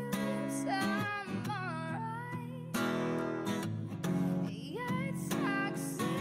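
Song playing: strummed acoustic guitar with a singing voice.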